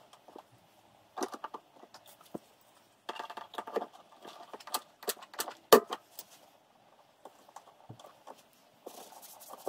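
A Mini Special wheel arch being handled and pressed against the car body: scattered knocks, clicks and rustling, with one sharp knock a little past halfway.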